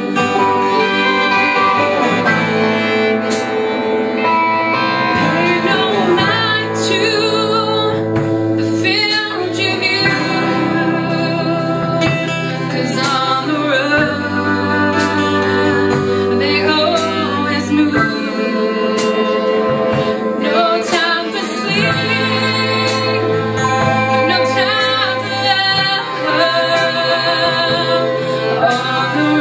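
A small band playing a song live: acoustic guitar and violin over a drum kit, with singing.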